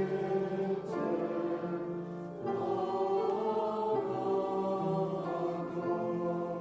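Church music: held choral chords moving to a new chord every second or so.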